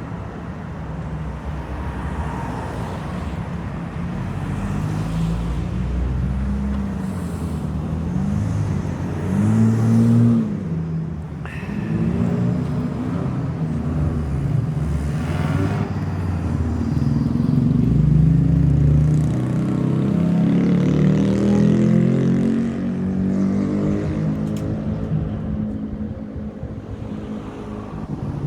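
A motor vehicle's engine running close by, with a low rumble. Its pitch rises and falls repeatedly as it revs, loudest about a third of the way in and again past the middle.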